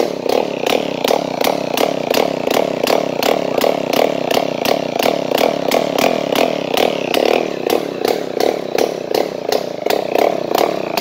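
Suzuki 121cc two-stroke lawn mower engine running with no exhaust pipe or muffler, an open-port buzzing with an even pulse about three or four times a second. It runs steadily, with no sign of trouble.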